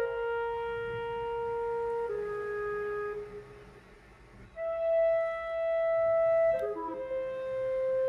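Background music: a slow woodwind melody of long held notes, each lasting about two seconds, with a brief quiet dip about halfway through.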